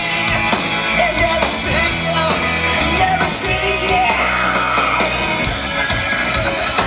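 A rock band playing live: electric guitar, bass guitar and drum kit, with a singer's voice over them through the PA.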